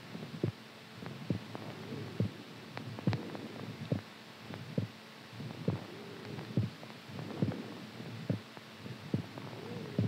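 Heartbeat thumping slowly and evenly, a little more than one beat a second (about 70 a minute), over a faint wavering hum.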